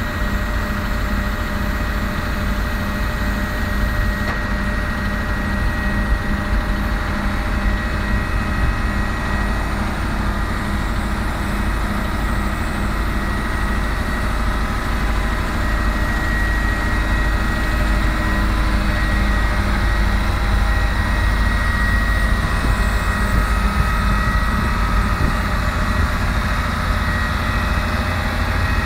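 MAN 4x4 truck's diesel engine running steadily and driving the HIAB crane's hydraulics while the crane and rotating grab are worked and folded away. A thin steady whine sits over the engine and grows louder about halfway through.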